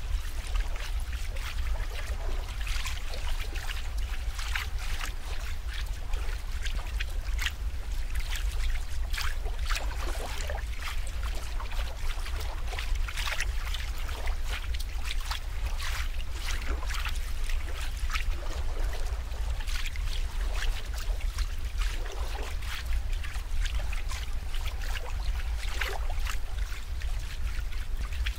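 Water trickling and splashing, an irregular stream of small drips and splashes over a steady low rumble.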